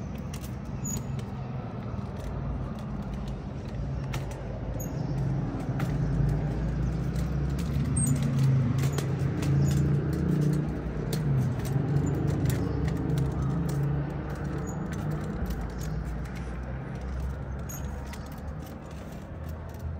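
Street traffic: a motor vehicle's low engine hum that grows louder about six seconds in and fades after about fourteen, with faint scattered clicks.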